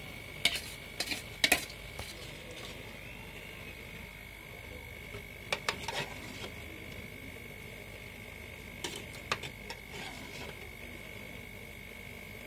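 A steel ladle clinking and scraping against steel cooking pots in short bursts of clicks, four times in all, the loudest in the first two seconds, over a steady high-pitched whine.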